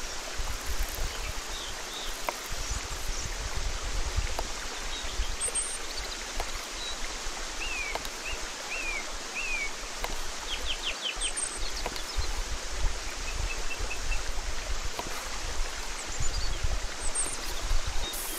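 Outdoor ambience: a steady rushing hiss with low rumble, and small birds chirping now and then, with a run of falling chirps and a quick trill near the middle. Faint knocks come from a knife slicing through dry sausage onto a wooden board.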